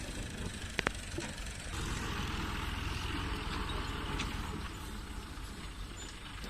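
Tractor diesel engine idling steadily with a low, even chugging, and a couple of sharp clicks about a second in. A broad hiss joins the engine about two seconds in.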